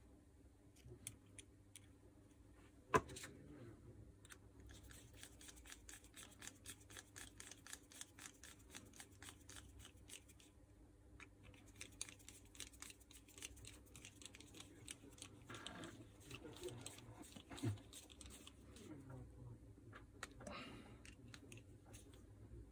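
Faint clicks and scraping of a screwdriver and small metal parts worked inside the opened housing of a Makita 4329 jigsaw. There is a sharp click about three seconds in and long runs of rapid ticking.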